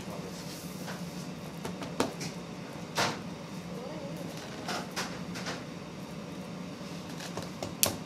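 Chocolate discs being dropped and placed by hand onto chocolate-spread dough on a wooden worktable: a few scattered light taps and clicks, one short clatter about three seconds in, over a steady low hum.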